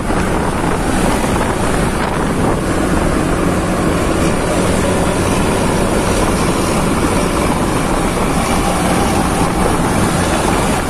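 Steady engine drone and road noise while moving at speed behind a coach bus, with heavy wind buffeting the microphone.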